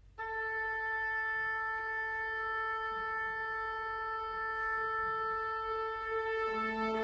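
A wind instrument sounds the opening of a contemporary chamber-ensemble piece: one long, steady note held for about six seconds. Near the end, lower instruments enter beneath it.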